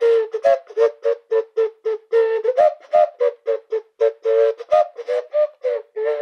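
A fast run of short, reedy, whistle-like toots, about four a second, mostly on one note with a few slightly higher ones, made at the mouth through a rubber breast prop held against it.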